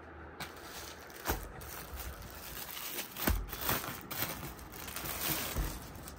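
Velvet suit fabric rustling and brushing as it is handled, with a few soft knocks and bumps.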